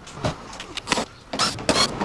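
Sped-up sound of fastener removal under a car: a fast string of sharp knocks and clatters mixed with short motor whirs from a cordless drill driving out screws.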